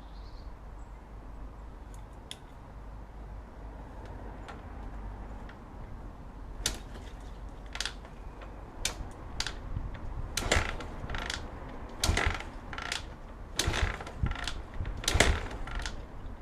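Irregular metallic clicks and clanks of hand tools and metal parts being handled. They are sparse at first, then come thicker and louder in the second half, over a low steady hum.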